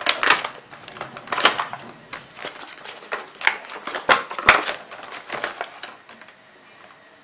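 Cardboard product box being opened by hand, its flap lifted and the inner tray pulled out: irregular scrapes, taps and rustles that die away about six seconds in.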